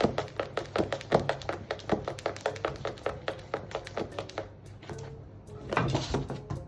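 Music with a fast, clicking, percussive beat over a steady low bass, with a louder noisy swell about six seconds in.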